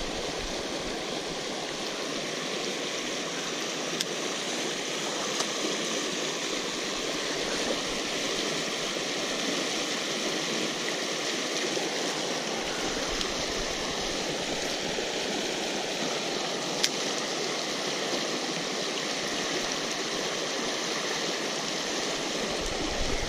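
Shallow creek water rushing steadily over a low rock ledge, with two faint clicks along the way.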